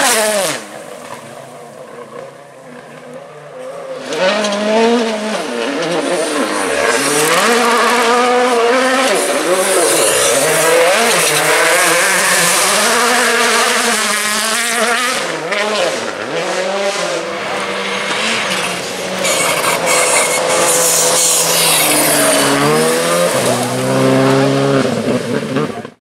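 2017 World Rally Cars' turbocharged 1.6-litre four-cylinder engines at full attack on a gravel stage, cars passing one after another. The engine note rises and falls sharply through the gear changes. The sound drops away for a few seconds near the start before the next car arrives.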